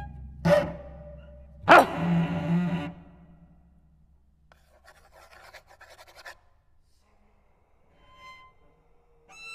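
Sparse experimental chamber music for cello and percussion: two sharp, loud attacks about a second apart over a fading low rumble, then a stretch of scratchy noise. A faint high pitched tone comes in near the end, then a clearer sustained one.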